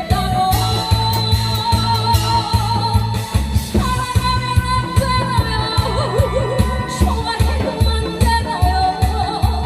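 A woman singing long, wavering held notes over a loud amplified backing track with a steady, pounding beat.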